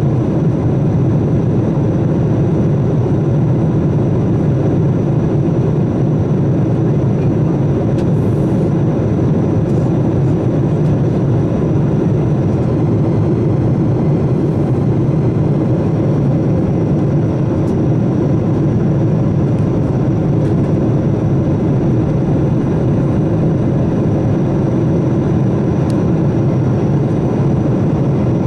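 Steady drone of a jet airliner's engines and rushing air heard inside the passenger cabin in flight, with a faint high steady whine over it.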